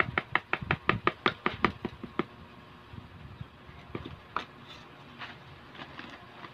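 Portland cement being sifted through a fine sieve set on a plastic bucket, the sieve struck by hand in quick taps, about five a second, for the first two seconds, then a few scattered knocks.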